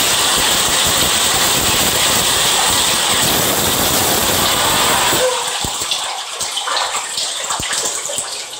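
Water running hard from a bathroom tap or shower, a loud steady rush that cuts off suddenly about five seconds in; a few faint knocks follow.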